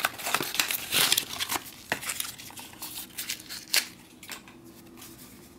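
Cardboard carton rustling and scraping as a food tube is slid out of it, with light clicks and knocks, busiest in the first two seconds and one sharper click later on.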